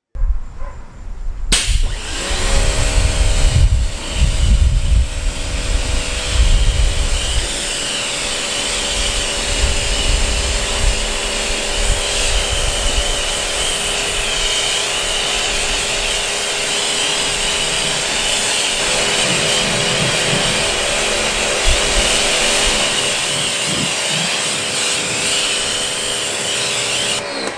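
An electric motor-driven tool starts about a second and a half in, spins up, and runs steadily with a hiss over its hum. Uneven low rumbling comes and goes during the first several seconds. It begins to wind down at the very end.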